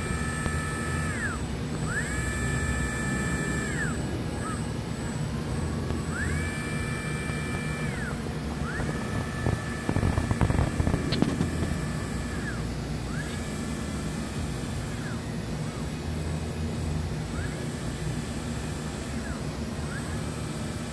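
Siemens 1FK7 servo motor running unloaded in a test cycle: its electric whine rises quickly, holds steady and falls away again, over and over every two to four seconds as the motor spins up, holds speed and spins down. A steady low hum runs underneath, and a few knocks come about halfway through.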